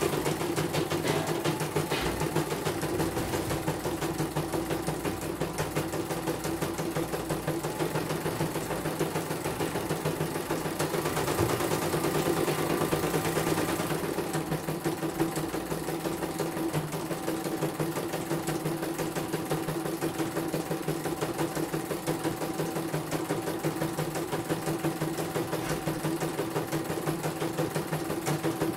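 CNY portable computerized embroidery machine running, stitching a design as the hoop is driven about: a rapid, steady needle rhythm over a motor hum, a little louder for a few seconds near the middle.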